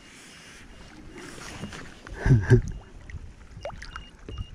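Largemouth bass thrashing and splashing at the side of a small boat as it is grabbed by the lip, water sloshing against the hull, with a louder double splash about two seconds in.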